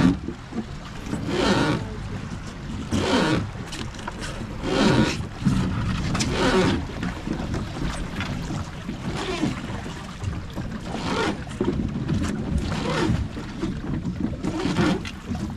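Creaking of a wooden river boat's oar being rowed, one stroke about every one and a half to two seconds.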